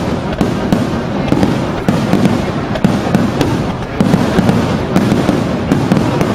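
Aerial fireworks bursting in rapid succession: many sharp bangs, several a second, over a continuous crackle.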